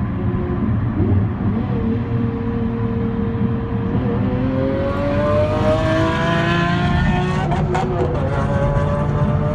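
Lamborghini Murcielago's V12 with a loud aftermarket Larini exhaust accelerating hard, its pitch climbing steadily from about four seconds in, with a short crackle near eight seconds, over steady road noise.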